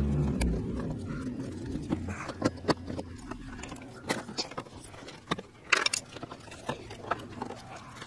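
Plastic B-pillar trim panel being worked loose by hand from its retaining clips: a series of irregular clicks and knocks of plastic, the loudest around six seconds in.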